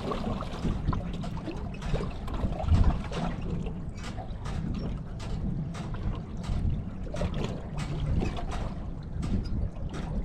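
Wind rumbling on the microphone, with a run of short, irregular light clicks from about four seconds in.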